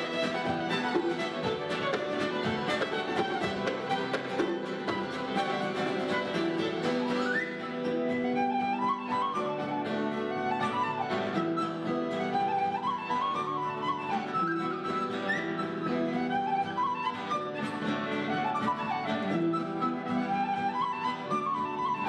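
Irish traditional band playing a tune live: fiddle, hammered dulcimer and guitar. About seven seconds in, a flute joins and carries the ornamented melody above them.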